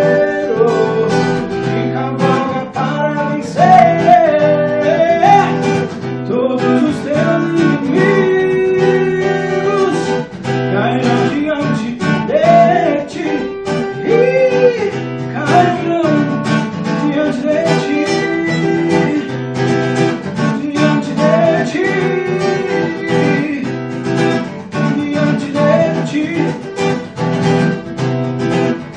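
Acoustic guitar strummed and picked, with a man singing along in a wordless, melismatic line.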